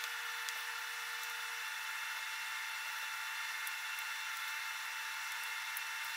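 A steady machine whine made of several held tones, with a few faint clicks. It cuts off at the end.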